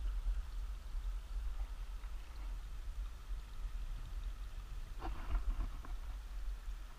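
Wind buffeting the microphone: a low, uneven rumble that rises and falls. A faint voice comes through briefly about five seconds in.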